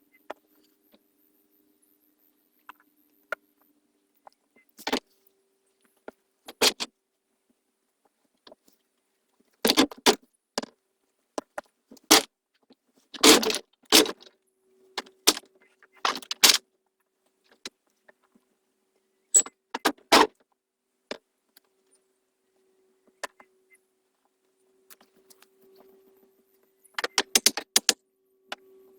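Scattered sharp metallic clinks and knocks from hand repair work, coming in irregular clusters with quiet gaps between them.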